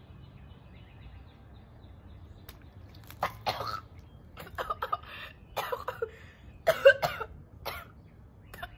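A woman coughing in a string of short, irregular fits, about six bursts starting some three seconds in.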